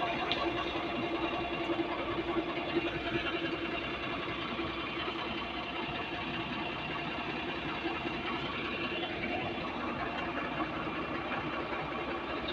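Concrete mixer truck's engine running steadily at idle, a constant even drone with a steady hum.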